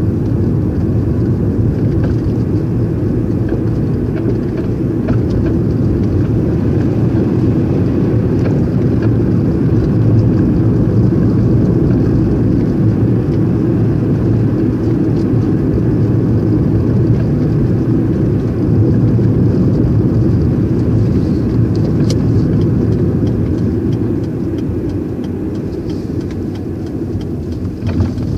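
Car driving along a road: steady rumble of engine and tyre noise heard from inside the cabin, easing off a little near the end as it slows.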